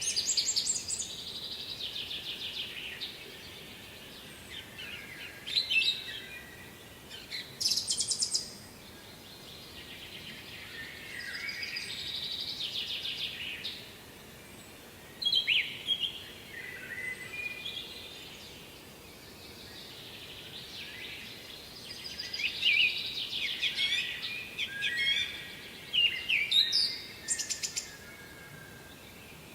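Songbirds singing, short varied phrases of chirps and trills repeated every few seconds, over faint steady background noise.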